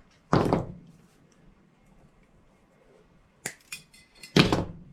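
Welding wire being worked by hand into hooks: two short, sharp noisy bursts about four seconds apart, with a couple of light clicks just before the second.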